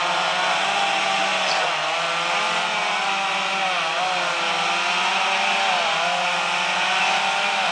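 Several chainsaws running at once as they cut into oak, their engine pitches overlapping and wavering up and down as the saws bite and ease off.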